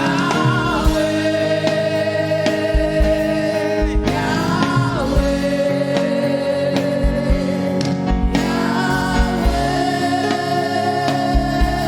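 Live gospel praise and worship music: singers hold long notes in three phrases over sustained keyboard chords and a bass drum beat.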